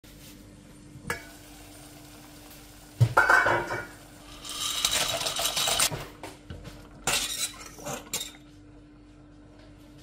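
A frying pan and utensils clanking on the stove, with a loud knock about three seconds in. Then comes a stretch of hiss as the chopped lard goes into the pan, and a few sharp clinks of a utensil against the pan.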